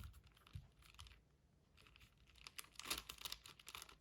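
Layers of a 6x6 Rubik's cube being turned by hand: faint plastic clicking and rattling, sparse at first and coming thicker and faster in the second half.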